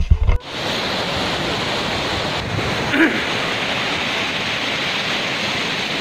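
Music cuts off about half a second in, giving way to the steady rushing of a mountain waterfall cascading over rocks, heard close by.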